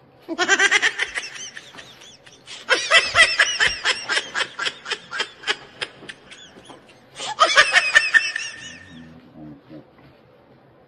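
High-pitched laughter sound effect: three bouts of rapid "ha-ha-ha" laughing, the longest in the middle, ending on a drawn-out note.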